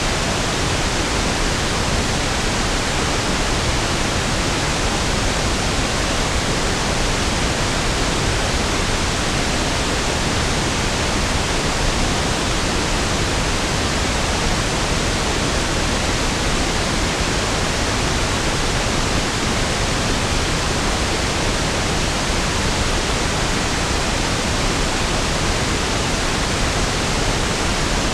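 Steady pink noise (1/f noise): an even, unchanging hiss with equal energy per octave, smoother and deeper than white noise.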